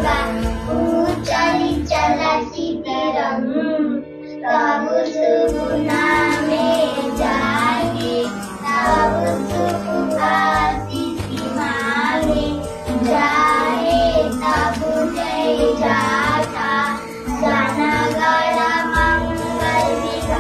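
Young girls singing a patriotic song over backing music, the sung line phrased in short breaks above steady held notes and a low pulse.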